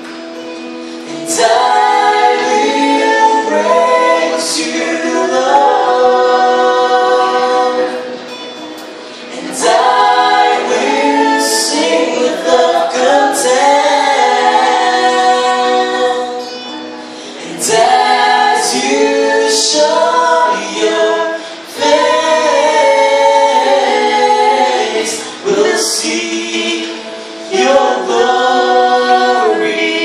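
A male and female vocal duet singing a Christian worship song over acoustic guitar, in phrases separated by short breaths.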